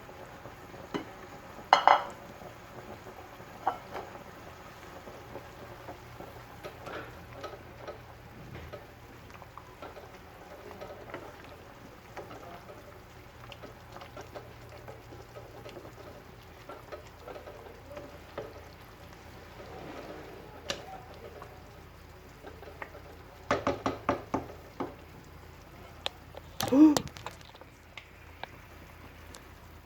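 Kitchen cooking sounds: a pot of soup bubbling on the stove while utensils clink and knock against the cookware, with a quick run of knocks late on and a louder ringing clank just after.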